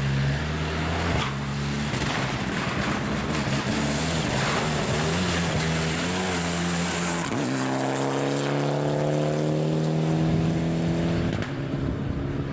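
Mitsubishi Lancer Evolution rally car engine running hard at speed, its note rising and falling with throttle and gears. Its pitch drops as it passes about seven seconds in, then settles into a steady note as it pulls away.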